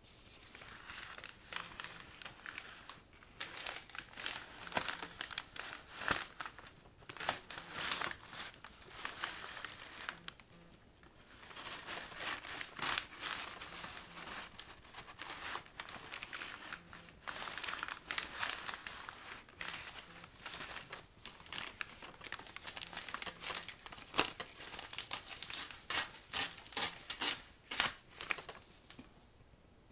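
Brown kraft paper bags crinkling and tearing: a dense run of crackles that stops for about a second around ten seconds in and again just before the end.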